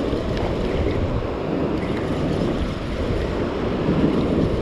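Steady wind noise on the microphone over surf breaking along the beach.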